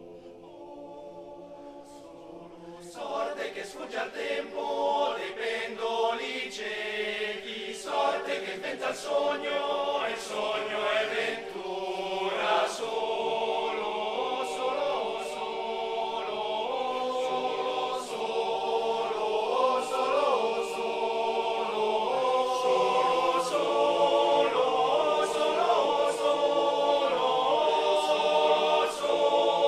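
Male voice choir singing a cappella in close harmony. A soft held chord opens, then the voices come in louder about three seconds in and the sound keeps growing in volume.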